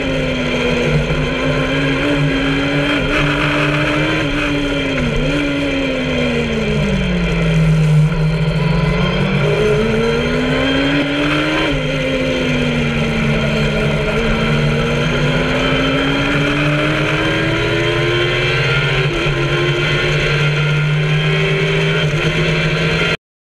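Kawasaki ZX-10R inline-four motorcycle engine in an MK Indy kit car, heard from the cockpit at speed on track. The engine note rises and falls, sinking to its lowest about eight seconds in and climbing again, with a sharp drop about twelve seconds in; it cuts off suddenly just before the end.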